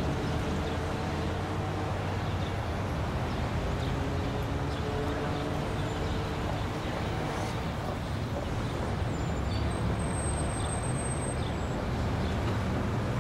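Steady outdoor ambience: a low, even rumble of distant road traffic.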